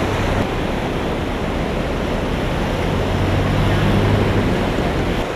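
Fast-flowing floodwater rushing and churning across a road. A vehicle engine hums low underneath and grows louder around four seconds in as the vehicles wade through the water.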